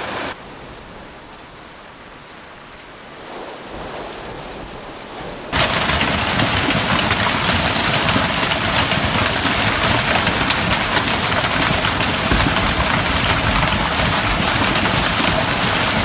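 Hailstorm: hail and rain pelting down in a strong wind, a dense patter of impacts. Moderate at first, it becomes much louder about five and a half seconds in.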